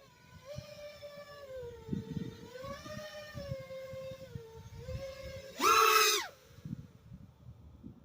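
FPV quadcopter's brushless motors whining, the pitch rising and falling as the throttle changes. About six seconds in, a short, much louder full-throttle punch.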